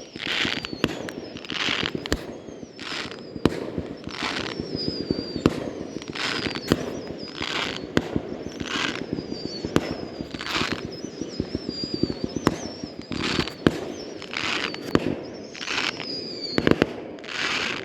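Fireworks display in a rapid barrage: sharp bangs and crackles one after another, with short hissing bursts and high whistles gliding down in pitch, over a continuous low rumble.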